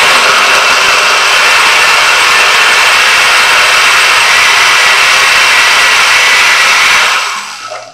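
Countertop blender with a glass jar running steadily, puréeing a thick mix of chopped peppers, herbs and vegetables; a loud even whir that winds down near the end.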